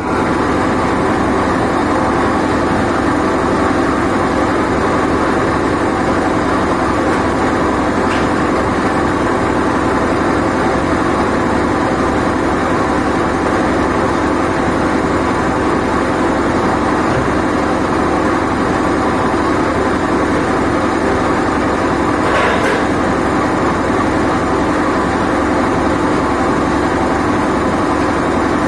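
Loud, steady drone of running machinery with a constant hum in it, unbroken throughout, and a brief noise about 22 seconds in.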